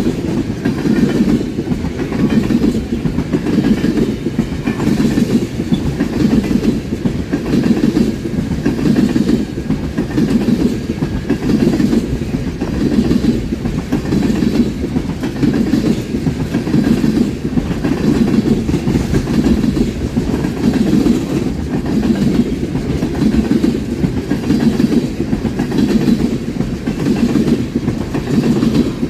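A train rolling past close by: a loud, steady rumble of steel wheels on rail, with a rhythmic clickety-clack of the cars' wheels passing over the rail joints.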